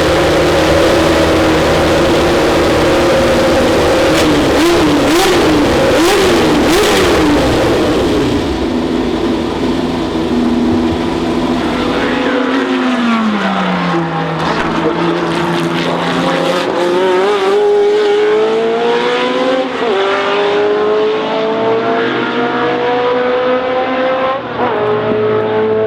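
Historic race car engines at high revs. In the first half the note flutters up and down as the throttle is blipped. Then the sound changes abruptly to one engine that dips in pitch and climbs steadily through the gears, with two upshifts near the end.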